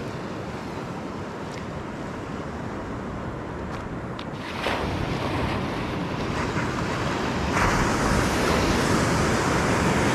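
Surf breaking on a reef, a steady wash of waves that swells louder about halfway through and again later, with wind on the microphone.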